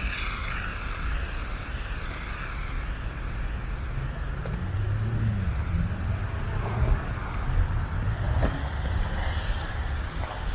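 Road traffic on a city street: a motor vehicle's engine and tyre noise, the low rumble swelling about halfway through as it passes.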